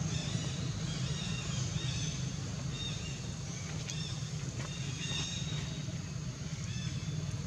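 A steady low drone, like an engine running, throughout, with short high chirps repeating over it.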